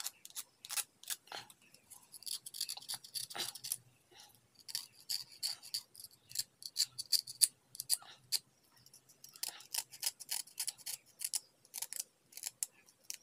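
Box-cutter blade scraping a crusted lead-acid battery plate: many quick scratchy strokes in runs, with brief pauses about four and nine seconds in.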